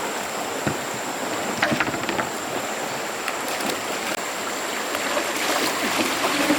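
Running stream water with a steady rushing sound, with a few short clicks about two seconds in and more near the end.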